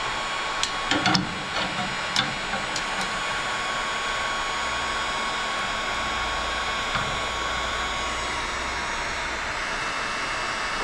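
Wagner electric heat gun running steadily, a fan hiss with a thin steady whine, used to heat a stuck engine valve cover. A few light clicks and knocks come about one to three seconds in.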